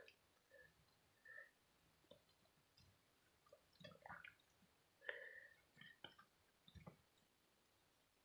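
Faint, scattered soft clicks and small wet smacks from a cat mouthing and biting a moth.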